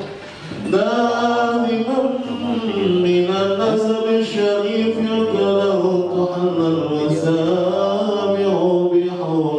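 A solo male voice chanting an Islamic devotional song (sholawat) unaccompanied into a handheld microphone, in long, wavering melodic phrases. There is a short break for breath about half a second in.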